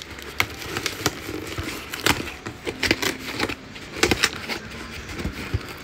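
Hands picking at and tearing the packing tape on a cardboard shipping box, making irregular crackles and taps. A small desk fan blows steadily underneath.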